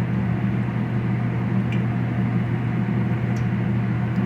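Corn tortilla frying in hot canola oil at about 375 °F, under a steady low mechanical hum.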